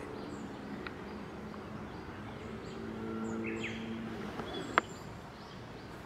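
Wild birds chirping and calling, with short high notes scattered throughout. A low steady hum comes in about halfway and fades before the end. Near the end there is one sharp click, the loudest sound.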